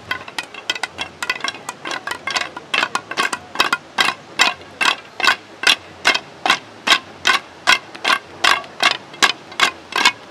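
Wooden sticks struck in unison by a group of performers: ragged clacking at first, settling after two or three seconds into a steady beat of about two and a half sharp knocks a second.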